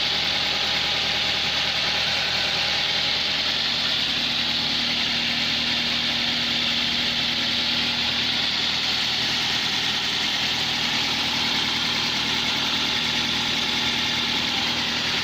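Toyota Avanza engine idling steadily.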